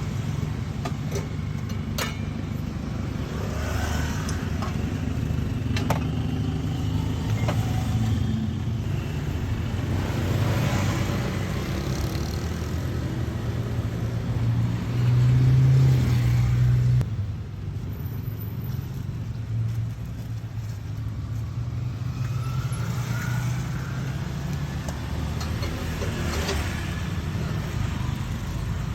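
Motor vehicles on a street: a steady low engine hum with cars and motorbikes swelling past several times. A louder low drone about fifteen seconds in stops suddenly a couple of seconds later.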